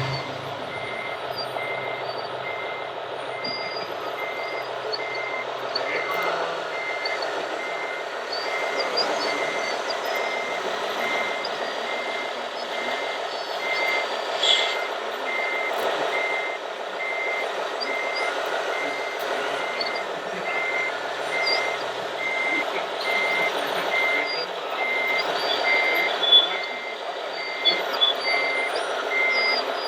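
Reversing-alarm beeper of a radio-controlled model truck or construction machine, a steady high beep repeating a little more than once a second, over a continuous hum of small running machinery.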